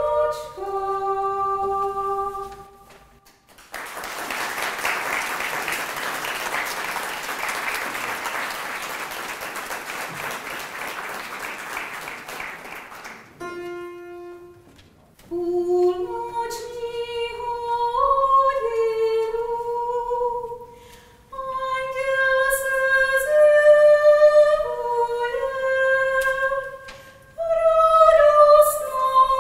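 A choir singing a cappella ends a song about three seconds in, followed by about ten seconds of audience applause; a couple of seconds later the choir begins the next song with high voices.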